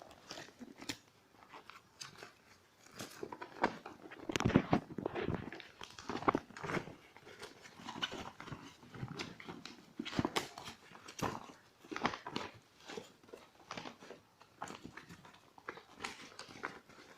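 Irregular clicks, taps and crinkling from hands handling a plastic airsoft pistol and its packaging.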